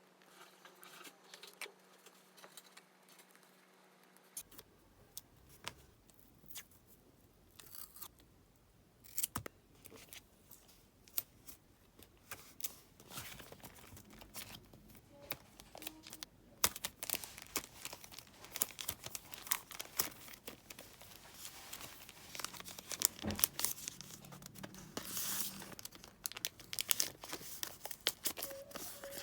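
Paper rustling, crinkling and tearing as paper scraps are handled for a scrapbook-style diary page, with scattered short taps and clicks. The handling gets busier and louder in the second half.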